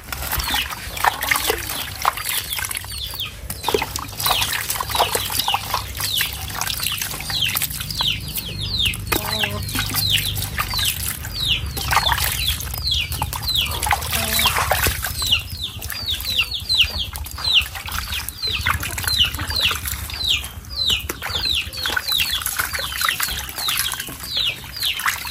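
Birds chirping steadily, many short high notes that each fall in pitch, several a second, with water splashing as mangoes are washed by hand.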